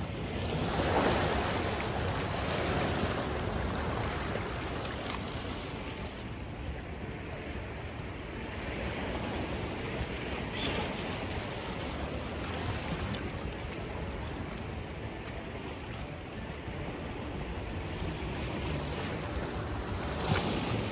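Sea waves washing and foaming against shore rocks, a steady surging rush that swells about a second in.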